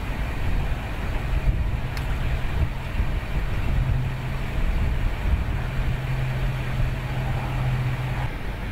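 Engine on a mobile radar truck running steadily: a low hum over a rumble, the hum fading out near the end.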